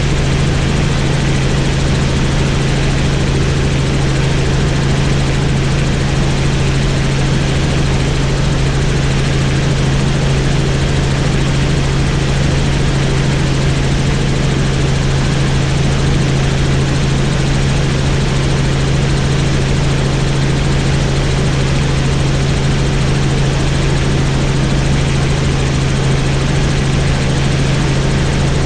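Helicopter in steady flight: an unchanging drone of rotor and engine, with a strong low hum and an even hiss above it.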